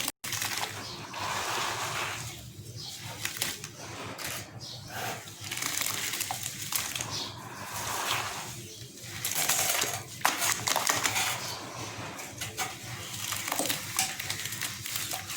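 Gritty sand-and-cement chunks crumbling in water: a dense crackling with many fine clicks that swells and fades several times.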